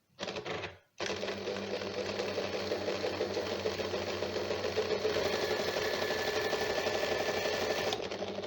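Janome zigzag sewing machine, covers off, running at speed with a dense, fast mechanical clatter that starts about a second in and cuts off sharply near the end. A faint high whine joins halfway through. The repairer puts the noise down to a loose motor belt.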